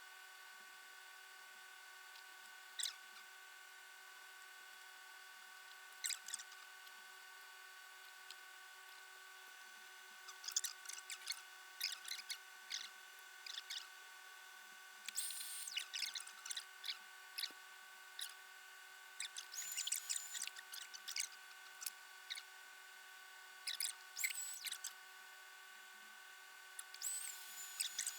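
A blade cutting through mink pelt: faint, sharp snips and crackly clicks, a few single ones at first, then in quick clusters from about ten seconds in.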